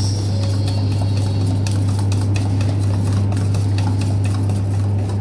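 A fork stirring tahini sauce in a stainless steel bowl, making many quick light clicks of metal on metal, over a loud steady low machine hum.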